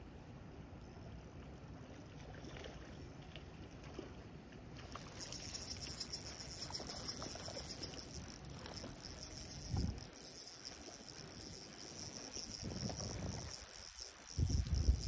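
Shimano Vanquish spinning reel being wound through a steady retrieve, a light whirring from its handle and rotor, under wind rumbling on the microphone. A high whir joins about five seconds in, a short low thump comes near ten seconds, and the rumble grows louder near the end.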